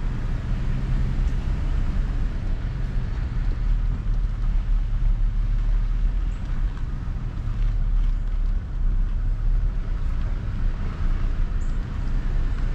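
Car driving slowly, heard from inside the cab: a steady low engine and road drone with an even rushing noise over it.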